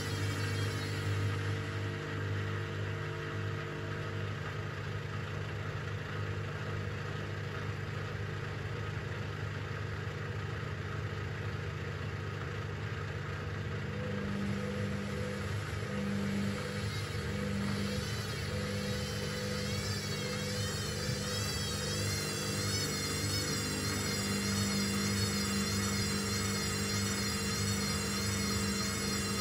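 Hoover VisionTech washing machine's motor turning the drum, a steady low hum with a high whine that wavers up and down in pitch, more noticeably in the second half.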